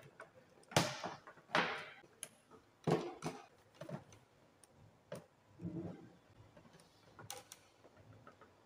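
Scattered clicks, taps and rustles of gloved hands bending and routing a stiff insulated cable into the terminal block of a single-phase energy meter mounted on a wooden board, in irregular bursts with short quiet gaps between.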